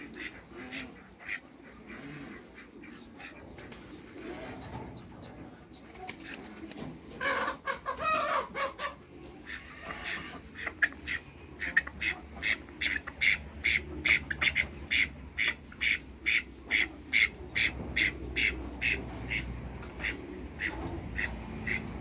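Ducks calling: scattered short quacks, a louder, lower burst of calls about eight seconds in, then a steady run of short, high-pitched quacks, about two to three a second, through the second half.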